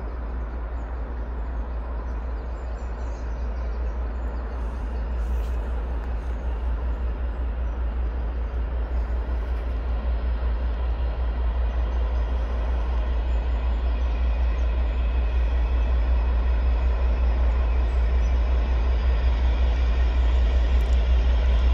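Class 56 diesel locomotive's Ruston-Paxman V16 engine approaching from a distance, a steady low rumble that grows gradually louder as it nears.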